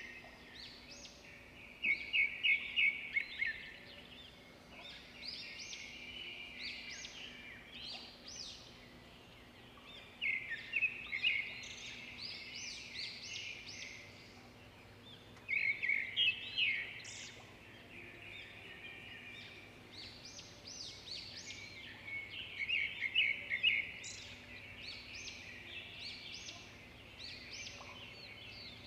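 Birds chirping and trilling in bursts of quick, high notes that come and go every few seconds, the loudest bursts about 2, 10, 15 and 23 seconds in.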